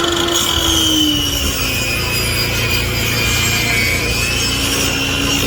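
Table saw ripping plywood into strips. The motor's pitch drops about a second in as the blade takes the load, then comes back up near the end.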